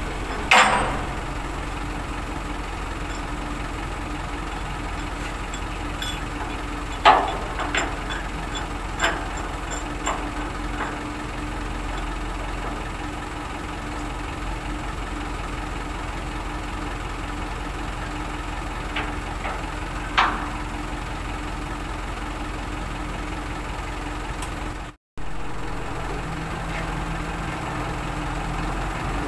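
Engine idling steadily, with a few sharp knocks as the tank is being dismantled: the loudest come about half a second in, at about 7 s and at about 20 s.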